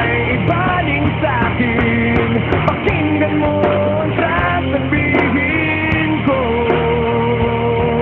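Rock song playing: a singing voice over guitar and drums, at a steady loud level.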